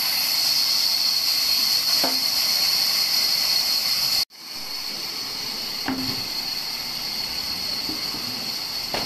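Large band sawmill running steadily, a hiss with a high whine, not cutting. The sound cuts out abruptly for a split second about four seconds in and comes back slightly quieter. A few faint knocks of wood being handled.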